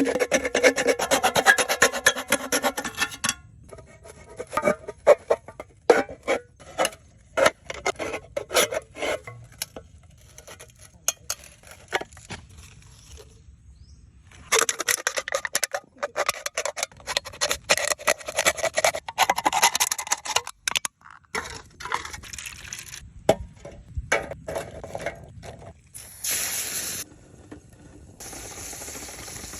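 Hand tools working wood: rasping, scraping strokes and sharp knocks in bursts, with a short pause midway.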